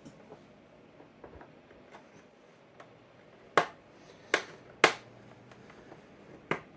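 Sharp clicks and taps from handling a plastic telephone housing and a screwdriver during disassembly: faint ticks at first, then four louder clicks in the second half.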